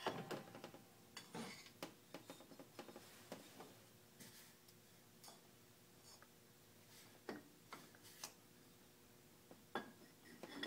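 Faint, scattered metallic clicks and taps as a finned cylinder is worked down over the piston and studs of a Honda 300 ATV engine. The loudest clicks come right at the start and again near the end, over a faint steady hum.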